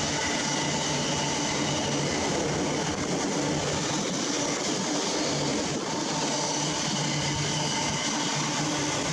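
Container wagons of a freight train rolling past on the adjacent track: a steady rumble of wheels on the rails, unchanging in loudness. Behind it runs the steady drone of the hauling GB Railfreight Class 66 diesel locomotive as it draws away.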